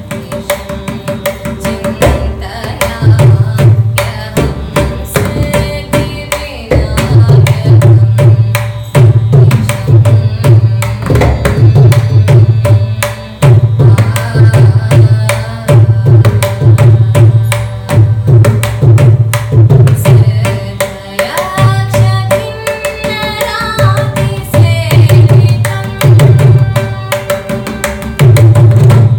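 A young woman singing a Carnatic kriti in raga Shanmukhapriya, set to Rupakam tala, with mridangam accompaniment: sharp strokes on the right head and regular deep bass strokes from the left head, over a steady drone.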